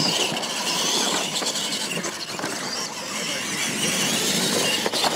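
Two radio-controlled monster trucks launching and racing side by side over dirt ramps: their motors and gears whining at full throttle over the crunch of the tyres on dirt, starting suddenly and running on steadily.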